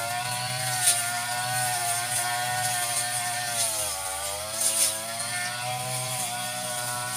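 Petrol brush cutter (grass-cutting machine) running at high speed while clearing grass. Its pitch sags briefly about four seconds in and comes back up, with a few sharp ticks.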